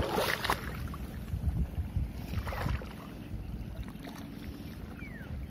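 Wind rumbling on the microphone over shallow seawater, with two short splashes of water, one at the start and one about two and a half seconds in.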